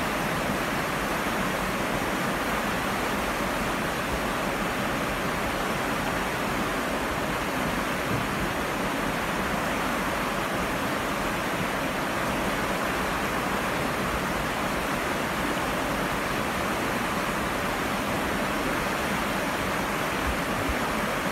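Rushing water of river rapids: a steady, even rush with no break or change.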